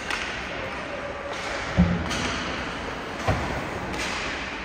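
Two dull, low thumps about a second and a half apart over steady background noise.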